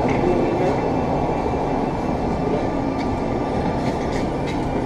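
Steady low rumbling noise with no clear rhythm, running evenly throughout.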